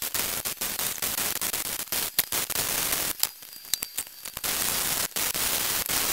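Arc welding on steel exhaust tubing: a crackling hiss in short runs broken by brief pauses, with a longer pause a little after three seconds in before the welding picks up again.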